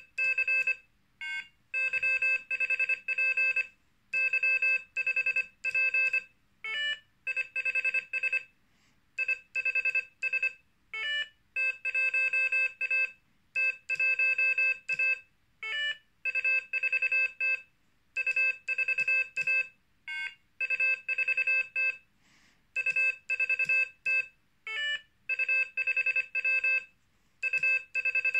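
Morserino-32 Morse code trainer sending three-character call signs as groups of beeps through its small built-in speaker, each group echoed back on an iambic paddle in the same sidetone. Every few seconds a short gliding tone sounds, the device's signal that the echoed call sign was right or wrong.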